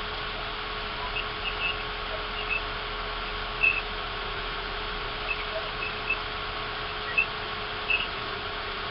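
Steady hiss and a faint steady hum from a webcam microphone in a quiet room, with brief, faint high-pitched chirps scattered here and there.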